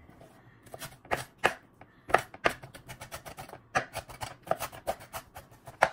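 Chef's knife mincing red onion on a wooden cutting board: sharp knife strikes on the board. A few spaced chops come at first, then rapid chopping from about two seconds in.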